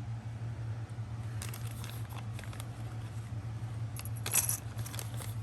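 Small metal jewelry pieces with dangles clinking and jingling as they are handled, in scattered clusters of light clicks, the loudest a little after four seconds in, over a steady low hum.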